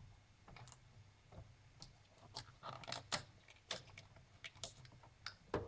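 Irregular small clicks and light plastic taps of hands working inside an opened laptop, unplugging ribbon-cable connectors, about a dozen in all with the sharpest near the end. A faint steady low hum runs underneath.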